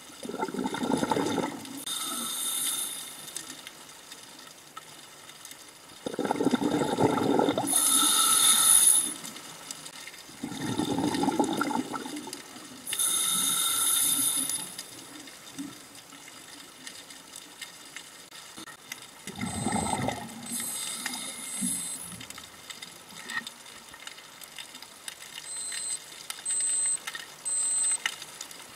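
Scuba diver breathing through a regulator: a gurgling rush of exhaled bubbles alternating with a shorter hissing inhalation, about four slow breaths. Three short high beeps come near the end.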